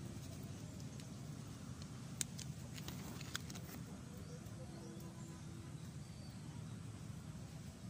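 Quiet outdoor background with a steady low rumble and a few faint, sharp clicks about two to four seconds in.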